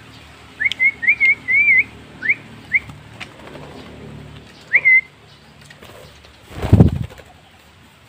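A person whistling a series of short, wavy notes to call a caged starling to hand-feed, in two runs about two seconds apart. A loud low thump about two-thirds of the way through.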